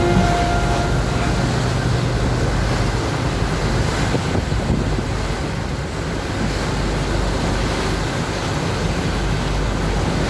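A boat under way: a steady rush of wind on the microphone and water churning in the wake alongside the hull, over a low rumble.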